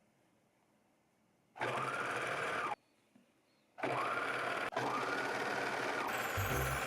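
Electric sewing machine stitching in two runs: a short burst about a second and a half in, then a longer steady run from about four seconds with a brief catch partway. Background music comes in near the end.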